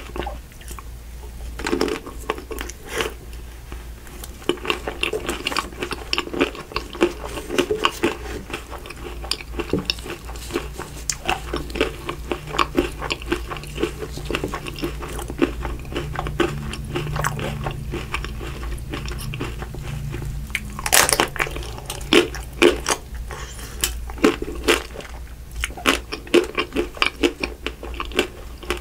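Close-miked mouth sounds of eating chocolate-coated ice cream bars: crisp crunching and crackling of the coating with wet chewing in between. One loud, sharp crunch comes about two-thirds of the way through, as the pink ruby chocolate shell is bitten.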